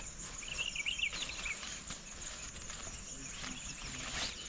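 Outdoor nature ambience: insects chirring steadily, with a short run of high chirps about half a second in.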